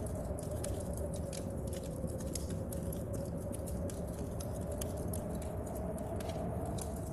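Wood fire crackling in a stove, with irregular sharp pops and snaps, over a steady low rumble of storm wind and rain.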